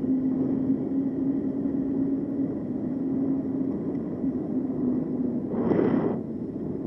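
E-bike on the move: a steady low whine from the motor over wind and road noise, with a brief rush of noise about five and a half seconds in.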